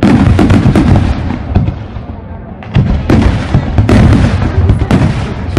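Fireworks going off: a sudden barrage of rapid, closely packed bangs that dies away over a couple of seconds, then a second barrage from about three seconds in.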